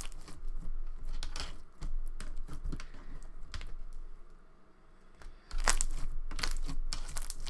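Thick slime packed with foam beads, kneaded and squeezed by hand: irregular crackling, dying down briefly a little past the middle while the slime is stretched, then dense again near the end.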